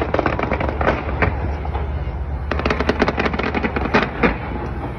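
Fireworks going off: two spells of rapid crackling pops, the first at the start and the second from about halfway until near the end, over a steady low rumble.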